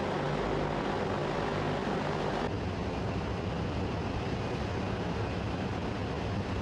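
Giant military hovercraft running: a steady engine and propeller drone with a low hum under a broad rushing noise.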